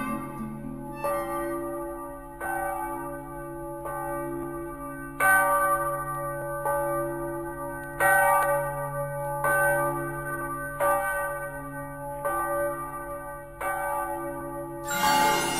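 Church bell ringing in slow, evenly spaced strokes, about one every second and a half, each stroke ringing on into the next. Near the end, music takes over.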